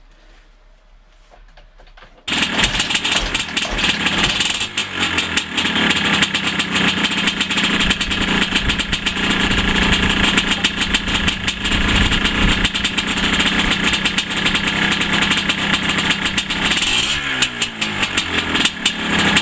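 Yamaha DT250's two-stroke single-cylinder engine cuts in abruptly about two seconds in and keeps running loudly: its first run after a new spark plug. The engine note wavers in pitch near the end.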